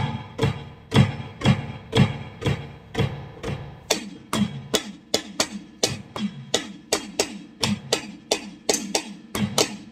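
A small drum set played in a steady beat: low drum hits about twice a second, with lighter hits in between, each stroke ringing briefly.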